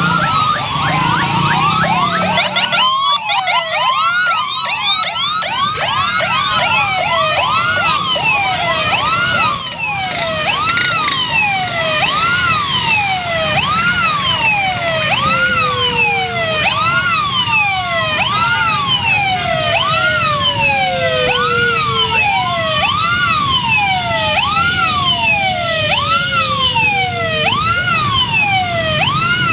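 Several electronic sirens sounding at once: overlapping rising-and-falling wails repeating about once a second, with slower long falling sweeps mixed in, over the running of many motor scooters.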